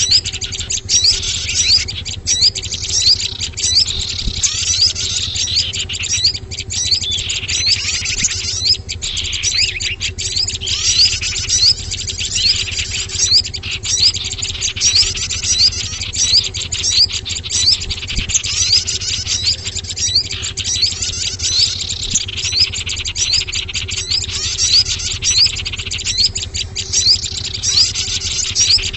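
Bird-luring playback of small songbirds: dense, unbroken high-pitched chirping and twittering from many birds at once, some phrases sweeping down in pitch, over a steady low hum.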